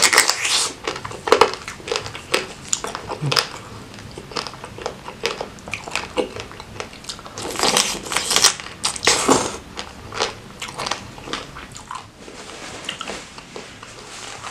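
Close-miked eating of crab in Padang sauce: wet biting and chewing broken by many sharp cracks and crunches of shell, louder for a stretch around eight to nine seconds in.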